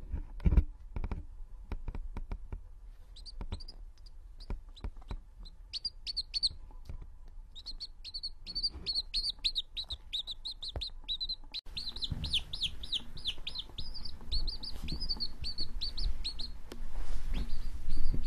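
Baby chick peeping: short, high, downward-sliding peeps that start a few seconds in and soon come in a rapid, almost unbroken string. A few soft knocks near the start.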